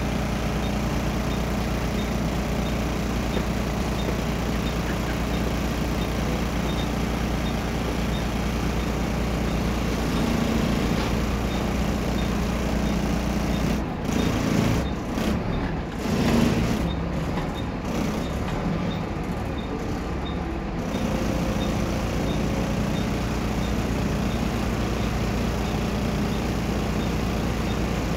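Volvo B7RLE bus's rear-mounted six-cylinder diesel running steadily, heard from inside the passenger saloon as a low drone with a faint regular ticking. Louder uneven knocks and rustles come between about 14 and 21 seconds in.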